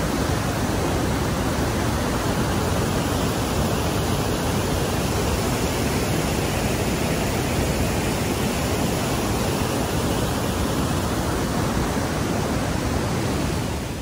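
Fast-flowing river water below a waterfall, rushing steadily with an even, unbroken noise.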